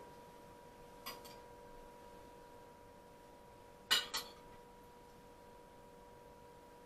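Metal spoon clinking against a ceramic dish while fruit salad is spooned onto plates: a light clink about a second in and a louder double clink about four seconds in, over a faint steady hum.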